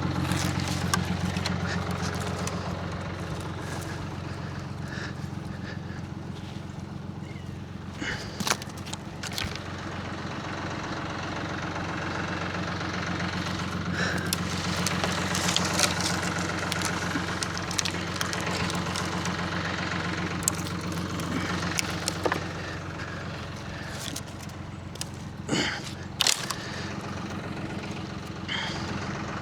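Tractor engine running steadily. A few short, sharp knocks break in over it now and then.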